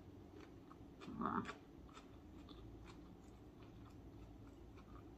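Faint close-miked chewing of a mouthful of seafood: small wet mouth clicks, with one brief louder mouth sound about a second in.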